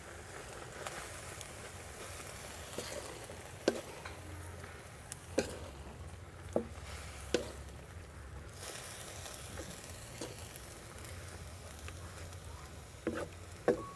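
Sliced pork and pig skin sizzling as they are stir-fried in a steel wok, cooking down in the juices they have released. A wooden spatula scrapes through the meat and now and then knocks sharply against the pan.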